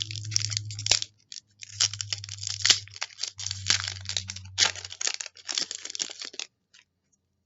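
A trading card pack's wrapper being torn open and crinkled in several spells, stopping about six and a half seconds in.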